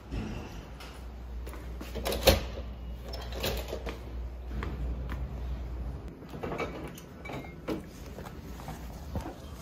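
Doors and a fridge door being opened, with a sharp knock a little over two seconds in and further smaller knocks and rustles of handling. A low hum runs underneath and stops about six seconds in.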